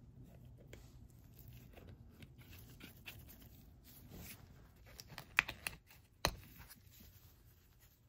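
Small irregular clicks and taps of little plastic parts and tools being handled on a work table, with a sharp click about five and a half seconds in and a knock soon after.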